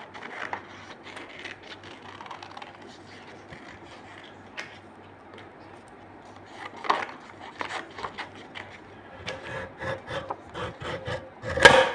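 Paper rustling and tapping as it is squared up on a guillotine paper cutter, with a louder knock about seven seconds in. Near the end the cutter's lever blade is drawn down with a run of rasping clicks and shears through the paper in one loud cut.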